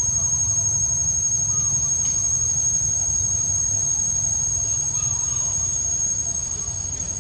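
A steady, thin, high-pitched insect drone that does not change, over a low rumble, with a few faint short chirps about a second and a half in and again near five seconds.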